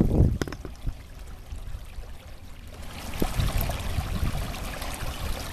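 Water trickling and splashing in the wake of two electric trolling motors, the motors themselves very quiet. There is a low rumble in the first half second, and the splashing grows louder from about three seconds in.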